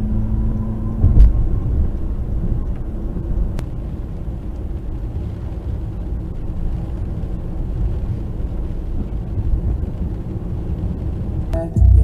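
Steady low rumble of a car driving on the road. A short steady tone stops about a second in, just as a sharp knock sounds. Music with a beat comes in near the end.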